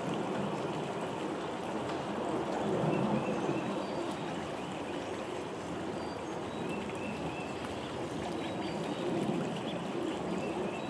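Shallow stream running over its bed, a steady rush of water that swells a little about three seconds in and again near the end.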